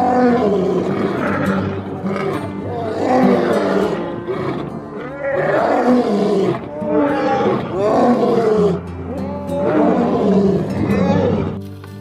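Lion roaring in a series of repeated calls, each a second or so long, over background music. The roars stop shortly before the end, leaving only quieter music.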